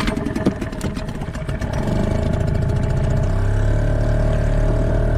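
Small boat's motor starting abruptly with a rattle, then running with a steady drone that grows louder about two seconds in.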